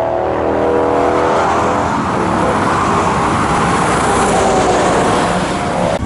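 Mercedes-Benz Actros MP4 truck pulling a curtain-side trailer on a motorway. Its engine drones at a steady pitch at first, then tyre and road noise swells as it passes close, with other traffic alongside.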